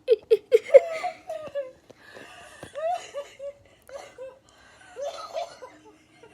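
Wheezing laughter: a quick run of short, pitched laugh pulses through the first second, then quieter, scattered laughs.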